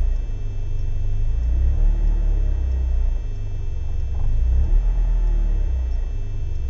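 BMW M42B18 1.8-litre four-cylinder engine idling roughly, a low rumble that dips and surges unevenly every second or so. The rough idle persists whether the engine is cold or warm, and the owner has not found its cause despite finding no leaks and cleaning the idle control valve and MAF sensor.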